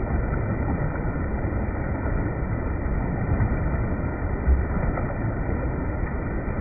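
Spring water running in a steady rush, with one brief louder moment about four and a half seconds in.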